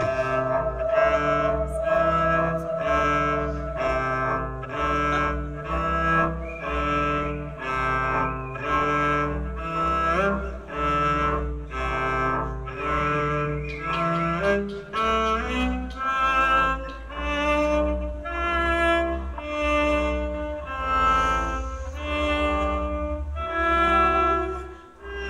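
Two double basses playing a live jam: a steady, repeating rhythmic pattern of notes that drops out briefly near the end.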